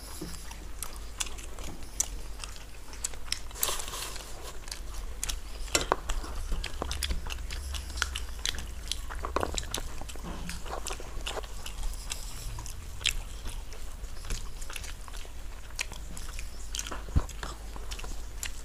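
Close-miked eating by two people: chewing and biting into puri and rice, with many short, scattered wet mouth clicks. Fingers mixing rice on steel plates can also be heard.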